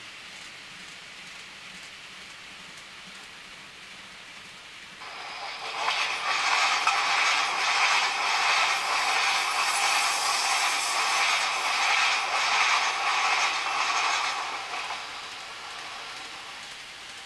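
A train passing: its running noise comes up sharply about five seconds in, holds for roughly nine seconds and fades away, over a steady background hiss.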